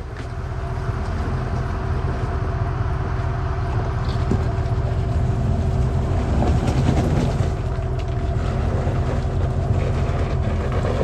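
Off-road vehicle's engine running steadily, a low rumble throughout.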